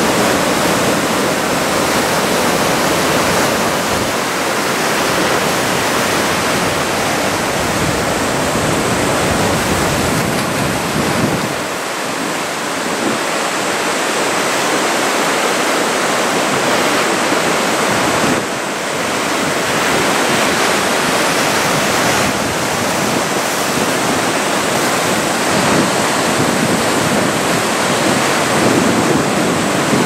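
Heavy surf from a typhoon swell breaking and washing in: a loud, continuous rush of water, with wind on the microphone.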